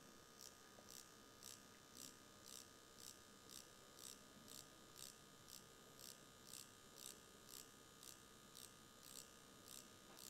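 DragonHawk X8 wireless tattoo pen running faintly at about 3,900 RPM while dotwork is being done, with a light, regular tick about twice a second.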